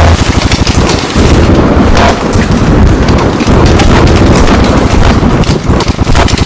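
Thunderstorm: heavy rain with a continuous low rumble of thunder, mixed with many sharp crackles.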